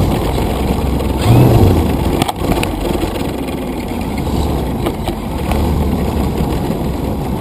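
Model airplane rolling over rough asphalt, heard from on board: a rattly rumble from the wheels and airframe, with a sharp knock about two seconds in.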